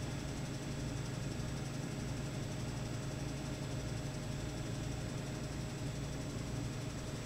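A large engine idling steadily with a low, even hum.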